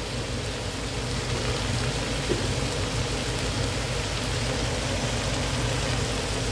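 Sliced onion, carrot, bell pepper and cabbage sizzling steadily in oil in a nonstick frying pan, an even frying hiss.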